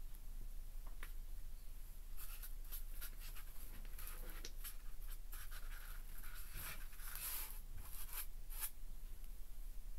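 Hands rubbing and pressing on a styrofoam board and a fish being shaped for a taxidermy mount: a run of short, irregular scratchy rustles starting about two seconds in and stopping near the end.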